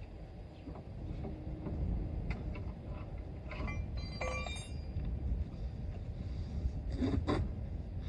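Clicks and clinks of a steel scissor jack being cranked under an SUV, with a short ringing metallic clatter about halfway. Near the end come two heavy knocks as the wheel with its tyre is picked up, over a low steady rumble.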